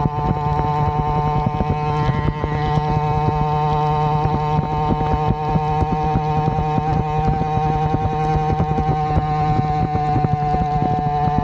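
Avenger 85 two-stroke motorized-bicycle engine with a welded Gomax expansion-chamber pipe running at steady, held revs while riding.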